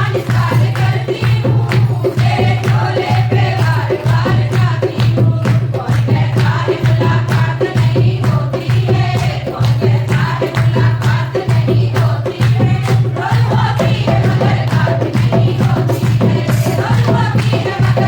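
A group singing a Hindu devotional bhajan at a kirtan, with quick rhythmic percussion like a tambourine over a steady low hum.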